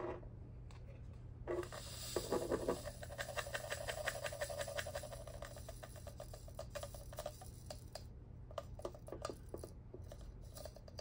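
Many small diamond-painting drills pouring out of a 3D-printed plastic drill tray: a dense pattering rattle of tiny clicks that starts about a second and a half in.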